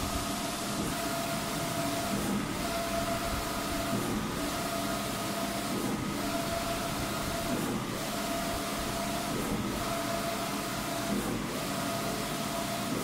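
Wide-format inkjet printer running, its print-head carriage sweeping back and forth across the banner: a steady whine on each pass that breaks off briefly as the carriage reverses, about every one and a half to two seconds, over a constant machine hum.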